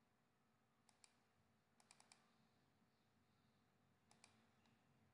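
Faint computer mouse clicks, mostly quick double-clicks: one pair about a second in, two pairs close together around two seconds, and another pair near four seconds, over a low steady hum.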